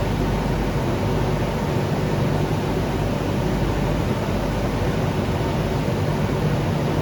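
Industrial circuit-board washing machine running: a steady, even rushing noise with a low hum underneath, unchanging throughout.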